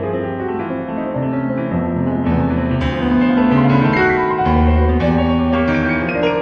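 Background piano music: slow sustained chords with changing bass notes.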